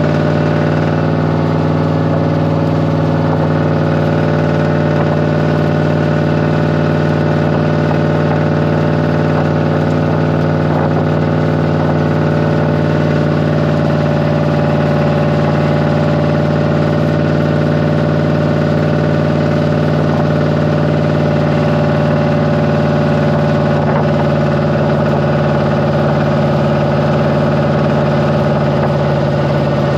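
Cummins V-555 'Triple Nickel' V8 diesel in a 1972 Brockway 358 truck, running at a steady speed under way, heard from inside the cab.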